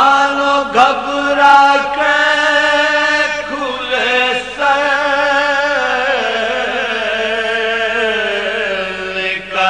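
A male voice chanting an Urdu marsiya in soz style, a mournful elegy sung in long held, wavering notes with brief breaks between phrases.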